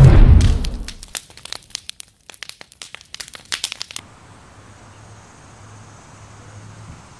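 Fire-themed intro sound effect: a deep boom that fades over about a second, followed by a run of sharp, irregular crackles like burning wood, cut off abruptly about four seconds in. After the cut, only faint steady outdoor background noise with a low hum.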